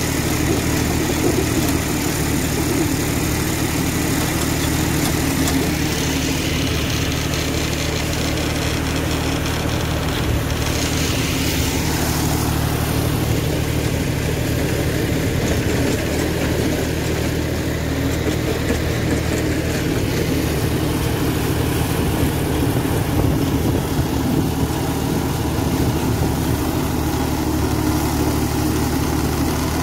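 John Deere 5310 tractor's three-cylinder diesel engine running steadily under load, driving a rotavator that chops banana stalks into the soil.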